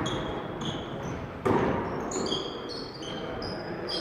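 Basketball game play in a gym: a ball bouncing on the hardwood court, with a loud thud about a second and a half in, and short high-pitched sneaker squeaks throughout.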